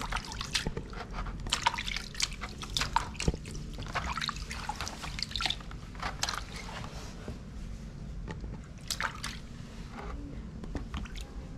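Water splashing and dripping in a plastic washbasin as hands wash a baby monkey sitting in it: a string of short splashes, busiest in the first half and sparser after.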